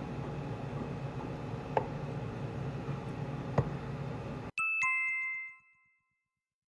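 Restaurant room noise with a steady low hum and two light clinks of tableware, then, about four and a half seconds in, a two-note descending electronic chime sound effect that rings out for about a second.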